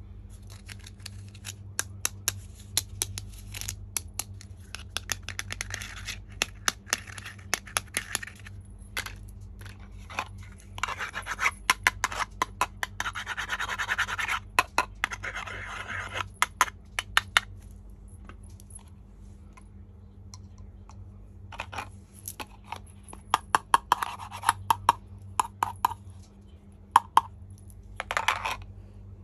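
Small plastic toy kitchen pieces being handled: many sharp clicks and taps, with stretches of scratchy rubbing, the longest about halfway through, over a low steady hum.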